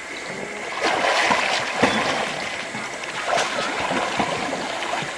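Water splashing and rushing around a canoe, loudest from about one to two seconds in.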